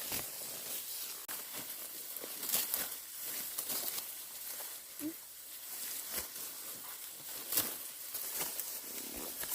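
Ripe rice stalks rustling and tearing as they are harvested, with irregular crisp snaps every second or two.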